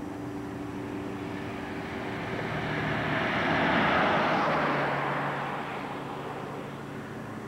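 A vehicle passing by on the road. The tyre and engine noise swells up, is loudest about four seconds in, then fades away, and a low engine note drops slightly in pitch as it goes past.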